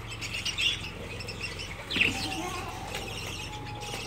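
Domestic pigeons flapping their wings as they crowd onto a feeding hand, with scattered short bird chirps and a sudden louder sound about two seconds in.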